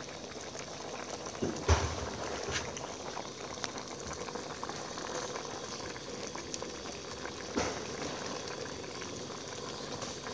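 Pot of pork-rib and vegetable soup boiling steadily, with two sharp knocks, the louder one about two seconds in and another about three-quarters of the way through.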